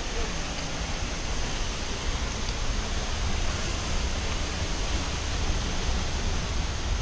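Steady, even rush of a large waterfall, with a low rumble underneath.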